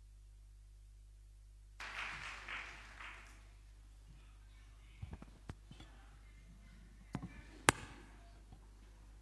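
Lectern microphones being handled and adjusted: a brief rustle about two seconds in, then several sharp knocks and taps, the loudest near the end. A low mains hum runs underneath.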